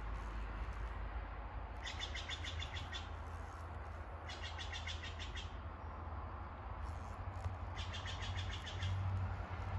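A bird calling in short, rapid trills, three times a few seconds apart, over a low steady rumble.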